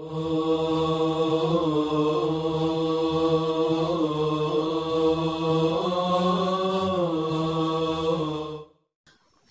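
Intro music: a wordless chanted vocal drone, held without a break while its pitch glides slowly up and down, with a steady high tone above it. It fades out about a second before the end, leaving near silence.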